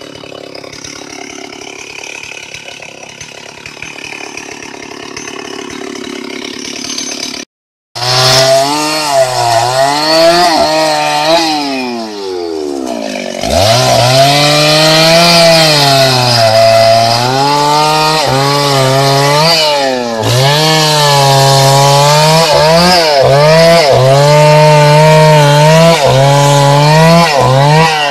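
Two-stroke Stihl chainsaw running at low speed, then, after a short gap about eight seconds in, revved hard and cutting into a sonokeling (Indian rosewood) log, its engine pitch rising and sagging again and again as the chain bites into the wood.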